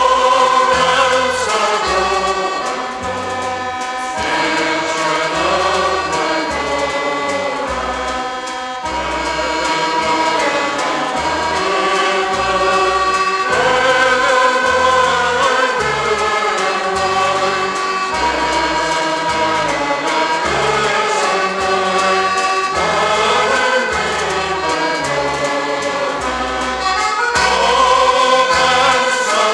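Scottish showband music with a choir of voices singing over the band, bass notes moving under the melody.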